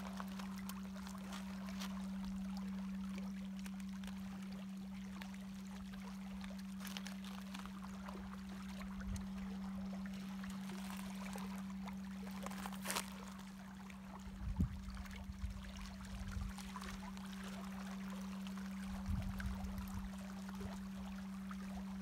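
Small waves lapping and splashing among granite boulders along a rocky shoreline, over a steady low hum. A few low thumps come about two-thirds of the way through and again near the end.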